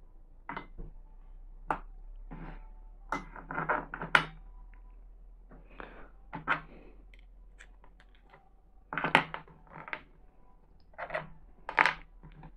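Scattered light taps and clicks as small pieces of cut melon and a fork are handled and set down on a plastic cutting board, with the loudest knocks about four seconds in, near nine seconds and near the end.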